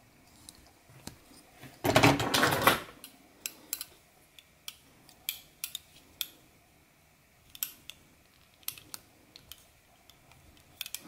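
Folding pocketknives handled in the hands: a loud metal clatter about two seconds in as knives are swapped, then scattered sharp clicks and taps of the knives being turned over.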